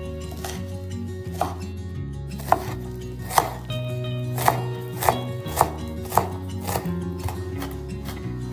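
Chef's knife chopping garlic cloves on a wooden cutting board: a run of sharp knocks of the blade on the board, about one or two a second, loudest in the middle, over background music.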